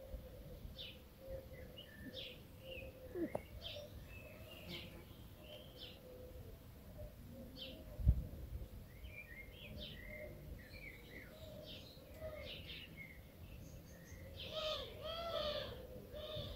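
Birds chirping in the background: many short, high chirps scattered throughout, with a louder run of calls near the end. A single low thump comes about halfway through.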